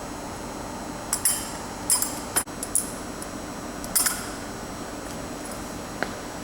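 Small steel nuts and bolts clinking against each other and the metal fastener plates as they are handled: a handful of short, sharp clinks in the first four seconds and one more near the end, over steady background noise.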